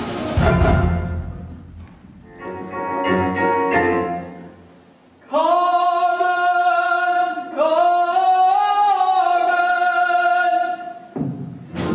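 Stage-musical music: a loud full orchestral chord that dies away and a softer sustained chord, then a solo singer holding two long notes, the second bending up and back down. It breaks off near the end, and full music comes back.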